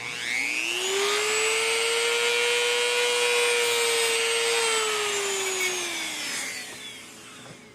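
Handheld rotary tool with a cut-off wheel spinning up and cutting through a thin diecast axle tube: a steady high whine over a gritty grinding hiss, winding down from about five seconds in once the tube is cut off.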